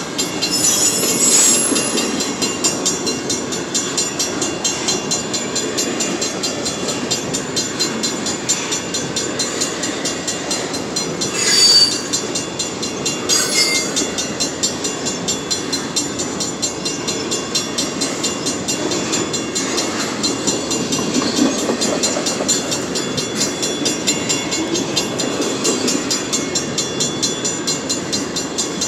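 Empty BNSF Auto-Max autorack cars rolling past: a steady rumble and clatter of wheels on rail. A few brief, sharper noises stand out, the loudest about twelve seconds in.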